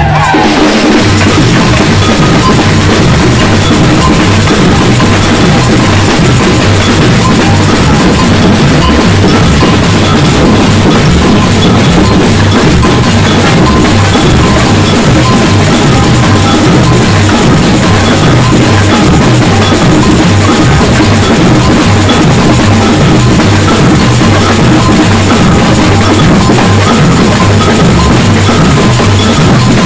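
Batucada samba drum band playing loud and steady: deep bass drums repeat an even beat under busy stick-played drums.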